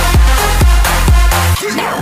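Electronic dance music with a steady deep kick drum and bass line. The beat drops out briefly near the end under a sweeping effect, then comes back in.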